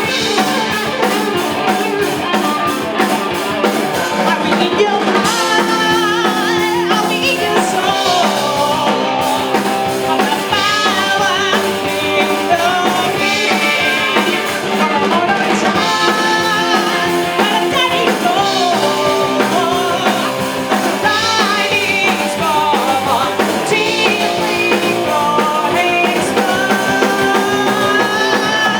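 Blues-rock band playing: electric guitar with bending melodic lines over a steady drum kit and bass.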